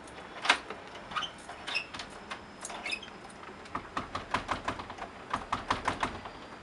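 Wooden stall door being worked shut and locked by hand: a sharp knock, a few short squeaks, then a quick run of clicks and rattles, about five a second, as the door and its fastening are jimmied into place.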